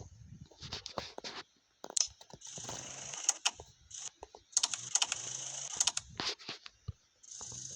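Close handling noise: a rapid, irregular run of clicks and knocks, with bursts of rustling hiss in between.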